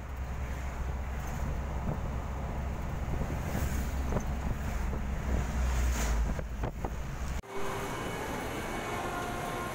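Wind buffeting the microphone: a low, gusty rumble with a few knocks. It cuts off suddenly about seven and a half seconds in, and a steadier, quieter background follows.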